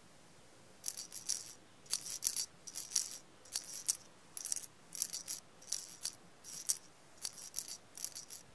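A shaker rattling in a steady rhythm: short clusters of two or three shakes, roughly one cluster every two-thirds of a second, starting about a second in.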